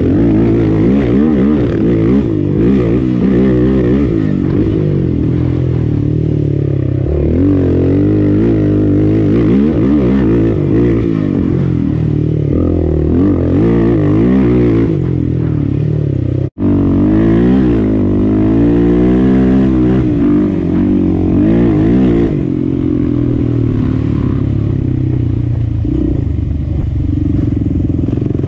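Sport ATV single-cylinder four-stroke engine running along a trail, its pitch rising and falling as the throttle opens and closes. The sound cuts out for an instant about two-thirds of the way through.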